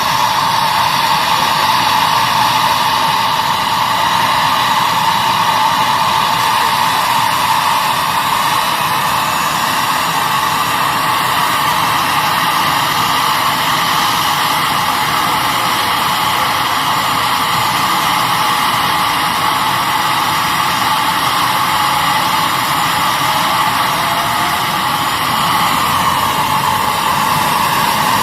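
Helicopter in flight, heard from on board: a loud, steady, unbroken drone of engine and rotor noise with no separate blade beat.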